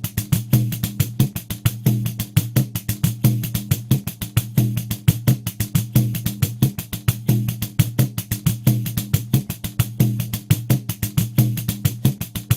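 Pandeiro playing a steady groove at 90 beats per minute: quick, even strokes about six a second, the jingles ringing over the low tone of the drum head.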